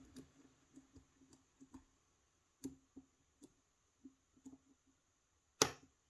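Hook pick working the pins of a pin-tumbler challenge lock under tension: scattered faint ticks and scrapes, then a sharper click near the end as pin four sets. The pin gives several clicks, which the picker puts down to serrated pins or threaded chambers.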